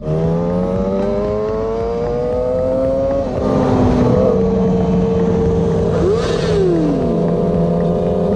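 Sport motorcycle engine accelerating, its pitch rising for about three seconds up to a gear change, then running steadily. About six seconds in, another engine's pitch sweeps down as it goes past.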